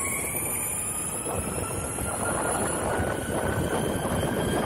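Electric skateboard riding on asphalt: Boundmotor hub-motor wheels with urethane sleeves rolling with a steady rumble, and a thin electric motor whine that slowly rises in pitch as the board speeds up.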